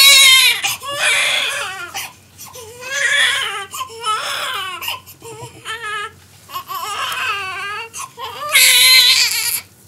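Newborn baby crying in a run of short wails, the loudest at the start and near the end.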